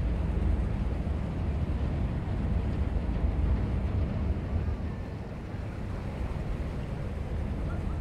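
Passenger ship's engine rumbling steadily under way, with wind buffeting the microphone. It eases off slightly about five seconds in.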